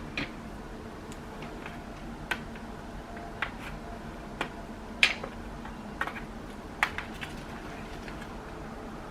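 A pry tool worked along the seam of a Dell XPS 13 9360 laptop's bottom cover, making scattered sharp clicks and snaps as the cover starts to lift, the loudest about five seconds in.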